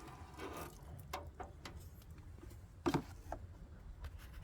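A few light clicks and knocks from a street-light fixture being handled and opened for a bulb change, with one sharper knock about three seconds in.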